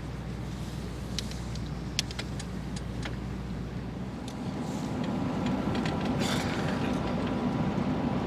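Steady low rumble of distant engines under general outdoor background noise, growing louder and rougher about four seconds in, with a few sharp light clicks in the first half.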